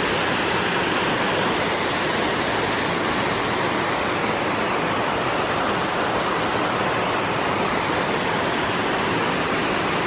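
Waterfall spilling over rock into a pool: a steady, even rush of falling water.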